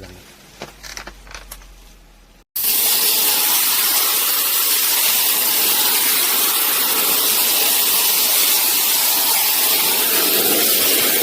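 High-pressure spray hissing steadily. It starts suddenly about two and a half seconds in, after a quieter stretch with a few faint clicks and knocks.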